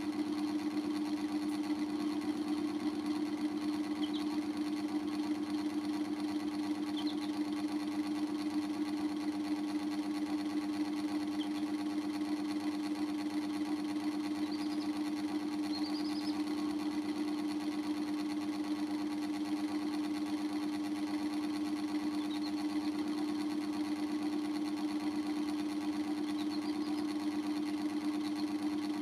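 A steady, even hum runs without change, with a few faint, short, high peeps from young chicks scattered through it, about seven in all.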